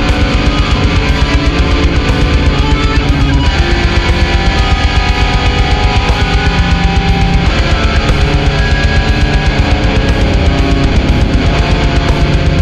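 Death-doom metal: distorted electric guitar chords held over rapid, dense drumming.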